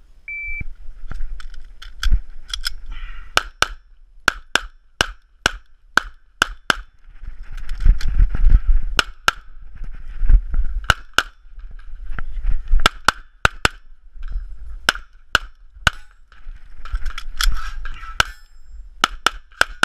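A shot timer's short start beep, then a handgun firing dozens of shots, mostly as quick pairs, in strings broken by rustling movement noise as the shooter moves between positions.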